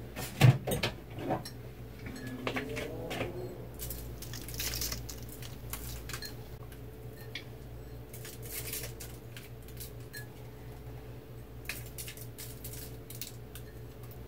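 A few sharp clinks of a ceramic mug and dishes in the first second and a half, then faint scattered taps and scrapes as brown sugar is pinched from the mug and sprinkled by hand, over a steady low hum.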